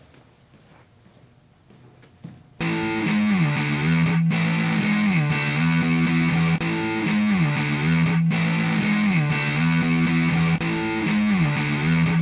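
Quiet room tone with a small knock, then distorted electric guitar music cuts in suddenly about two and a half seconds in: a heavy repeating riff whose notes slide down about every second and a half.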